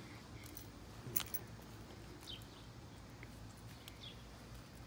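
Quiet outdoor garden ambience with a few short, faint bird chirps and a single sharp click about a second in.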